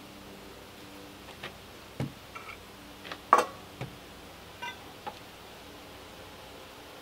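Metal pots and pans knocking and clinking as they are handled and hung up: about seven light knocks over a few seconds, the loudest just past three seconds in, several with a short metallic ring.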